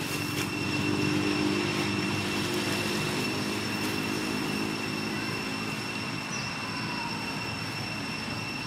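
A steady low engine hum, strongest in the first few seconds and fading away over the second half, over a constant thin high-pitched whine and a background hiss.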